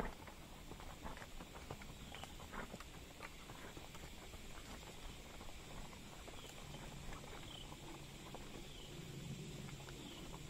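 Faint, irregular hoof steps of a horse walking on a soft dirt woodland trail. Short high chirps repeat about once a second through the second half.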